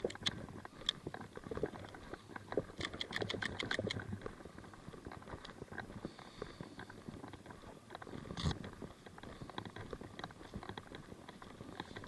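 Footsteps and kit rustling with scattered small knocks, a quick run of about eight sharp clicks around three seconds in, and one louder click a little past eight seconds.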